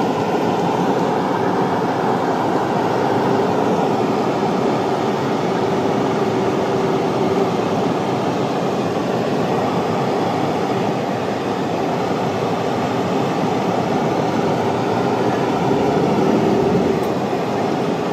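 Steady road noise of a moving car heard from inside the cabin: tyre and engine rumble with a faint, even hum, swelling slightly near the end.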